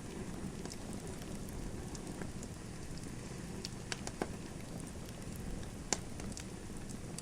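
Wood fire in a fireplace crackling: a steady low rumble with scattered sharp pops, a few of them in quick succession about four seconds in and the loudest about six seconds in.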